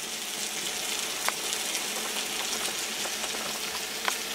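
Sliced onions and bell peppers sizzling in a hot pan: a steady frying hiss with a sharp pop about a second in and another near the end.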